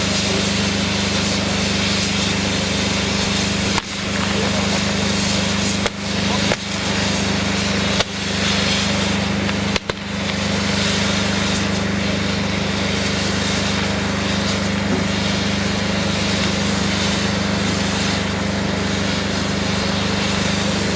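Burning fireworks front piece: the drivers spinning its wheels give a loud, steady hissing rush with a low hum underneath, broken by several sharp cracks in the first half.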